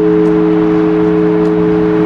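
Large Orthodox church bell ringing on after a stroke: a steady, loud hum of several low tones held together, with no new strike. It is rung to call the faithful to the all-night vigil.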